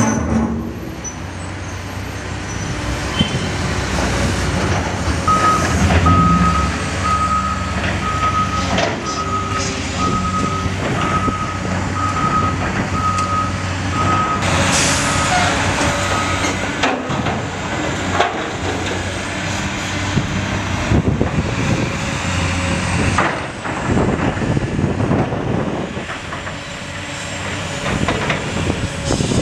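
Diesel engines of heavy construction equipment and trucks running, with a backup alarm beeping steadily, a bit under two beeps a second, from about five seconds in for roughly eleven seconds. A loud burst of hissing air comes about fifteen seconds in.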